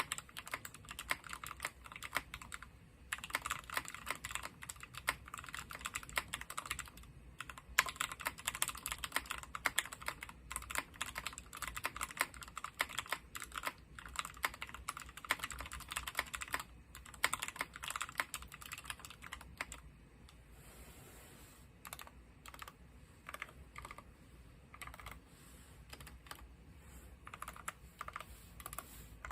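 Typing on a Morgan65 custom mechanical keyboard with lubed Alpaca linear switches, GMK keycaps and an aluminium plate. A fast, dense run of keystrokes thins to slower, separate presses after about twenty seconds.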